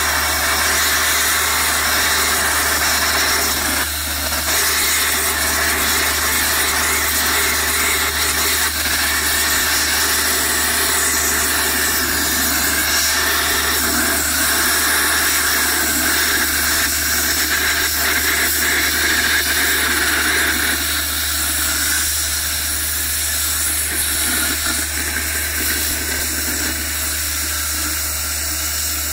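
Oxygen thermal lance burning into a steel shaft: a loud, steady rushing hiss of the oxygen jet cutting through molten steel, easing off a little in the last third. Near the end the lance rod is burnt out and only the pure oxygen stream is melting the steel. A steady low hum runs underneath.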